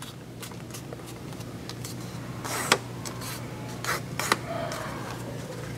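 Orange cardstock being handled and creased along a fold: light paper rustles and a few sharp paper snaps, the loudest about halfway through and two more shortly after, over a low steady hum.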